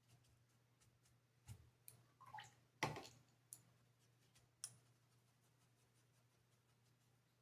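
Near silence, broken by a handful of faint clicks and taps of painting tools, the loudest about three seconds in.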